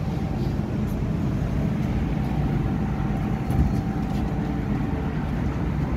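Inside an MTR M-Train electric multiple-unit car, heard by the door: steady train rumble with a faint steady whine through the first few seconds.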